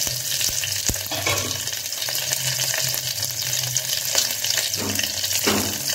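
Cumin seeds and chopped green chilli sizzling and crackling steadily in hot oil in a pressure cooker: the seeds being tempered before the spices go in.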